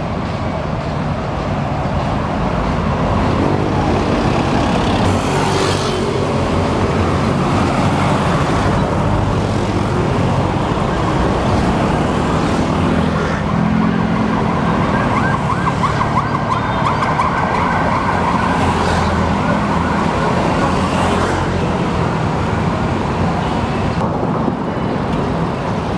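Steady city road traffic from the elevated highway and nearby streets, with a vehicle engine rising and falling through the middle. A high wavering tone sounds for several seconds about halfway through.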